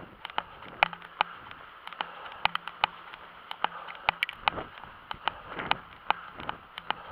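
Running footsteps on an asphalt road, a quick, uneven series of sharp taps about two to three a second, mixed with knocks and rustle from the handheld camera over a steady hiss of wind and movement.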